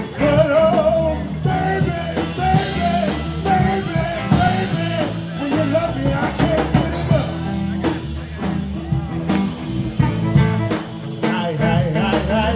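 Live band playing: guitar and drum kit, with a man singing into a microphone over them.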